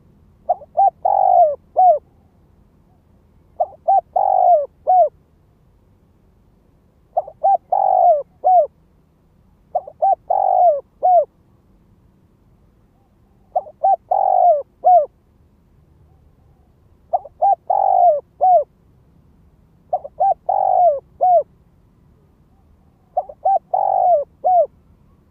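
Spotted dove cooing its repeated song: eight phrases, each a few short coos ending in a longer drawn-out note, about every three seconds. It is a decoy male's calling song, used to lure wild doves.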